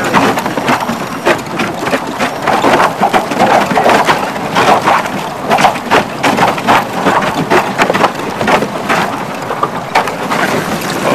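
Thin lake ice cracking, crunching and scraping against the aluminum hull of a G3 boat as it is driven through the ice sheet: a dense, irregular crackle.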